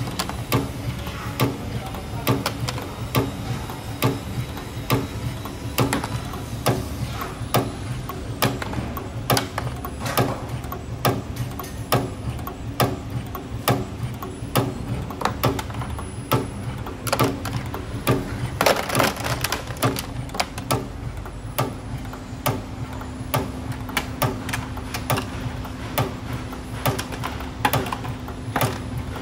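CNC torsion spring machine running, forming 1.5 mm wire springs: a steady motor hum with a sharp clack repeating about one and a half times a second as the tool slides cycle. A louder, longer rattle comes about two-thirds of the way in.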